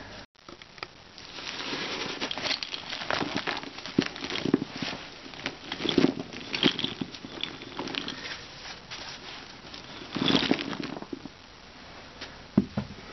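A basketful of small plastic Smurf figures tipped out onto a carpet: a long run of light plastic clattering and rattling as they pour and tumble. There is a louder rush about ten seconds in and a few last clicks near the end.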